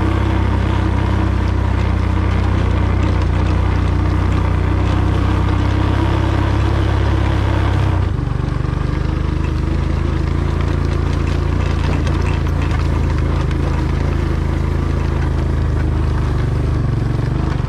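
Vehicle engine running steadily while driving across a field. About eight seconds in, the engine note changes and gets a little quieter.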